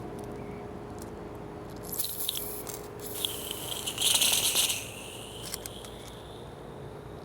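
Aerosol penetrating oil (PB Blaster) sprayed in short hissing bursts onto a hot, freshly welded nut and broken bolt, crackling and sizzling on the hot metal; the longest burst comes about four seconds in.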